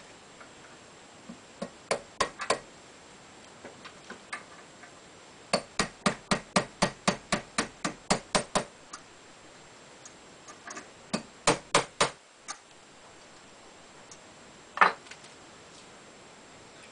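Hammer tapping a pin punch to drive a retaining pin out of a side-by-side shotgun's action, freeing the trigger and hammer. Light, quick taps in bursts: three about two seconds in, a run of about fourteen at four or five a second from about five and a half seconds, four more near twelve seconds, and a single ringing tap near fifteen seconds.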